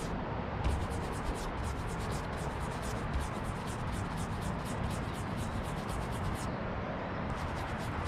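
Small foam paint roller worked back and forth over wet paint on a car door, making a rapid run of light ticks, several a second, that stops briefly about six and a half seconds in and picks up again near the end.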